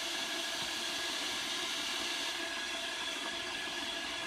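Electric kettle heating water just after being switched on: a steady hiss from the element while the water is still cool, well short of the boil.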